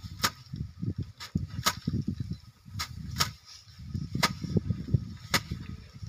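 Hand threshing of rice: bundles of rice stalks slammed down onto a slatted wooden threshing rack, giving about seven sharp whacks at irregular intervals, roughly one a second, with the rustle of straw in between.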